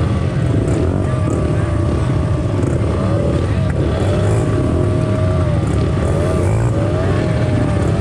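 A pack of small pit bike engines idling and revving together on the start line, a loud steady drone with pitches rising and falling as throttles are blipped.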